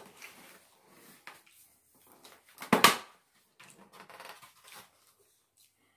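Clear plastic clamshell food container being handled and opened, crinkling and crackling, with one loud sharp crackle about three seconds in and a run of smaller crackles just after.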